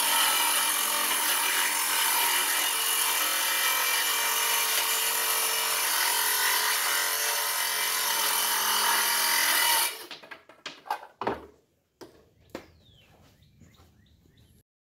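Bauer 20-volt cordless circular saw with a 24-tooth framing blade cutting through wood, a loud steady running sound that stops suddenly about ten seconds in. A few short knocks and clatters follow.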